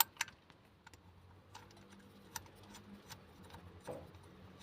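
A few light metallic clicks and taps, spaced irregularly, from a bolt being fitted by hand into a water pump pulley.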